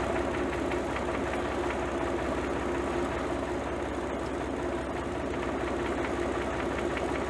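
An old tractor's engine idling steadily.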